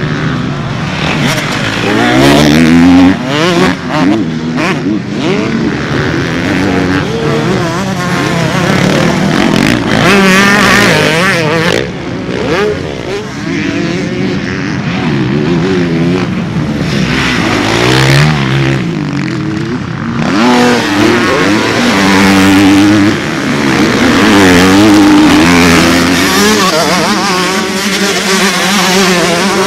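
Motocross bike engines revving hard, their pitch climbing and dropping over and over as the riders accelerate, shift and back off; at times two bikes are heard together.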